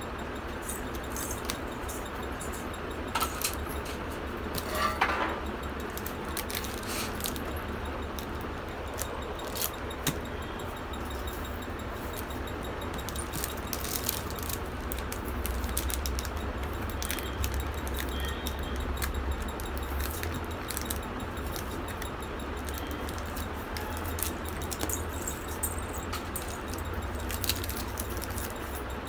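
Scattered small metallic jingles and crinkly clicks from a baby's silver bell anklets and plastic lollipop wrappers as the baby moves and handles them, over a steady low hum.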